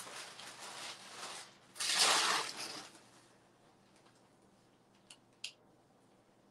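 Rustling of clothing and handling around a clamshell heat press, loudest in a short burst about two seconds in. Then it goes quiet apart from two light clicks close together near the end, as a hand takes hold of the press handle.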